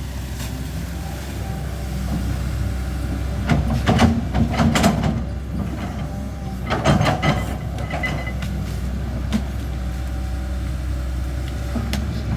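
Caterpillar 320D excavator's diesel engine running steadily, with two bursts of scraping and clanking as the machine works, about four seconds in and again about seven seconds in.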